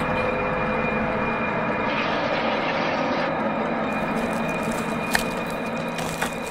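A steady, rumbling ambient drone with a few held tones in it, used as a cartoon's horror sound bed. A brighter hiss swells about two seconds in for a second or so, and a single click comes about five seconds in.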